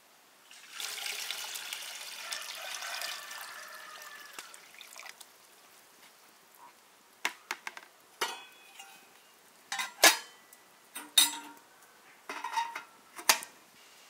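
Water poured from a plastic bucket into a metal samovar, a steady splashing pour lasting about four seconds. After a pause, a run of sharp metallic clinks and knocks.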